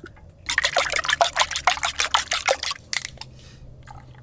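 Egg batter being stirred fast with a spoon in a plastic mixing bowl: a rapid clatter of small clicks starting about half a second in and stopping near the three-second mark. Milk is then poured into the bowl, much quieter.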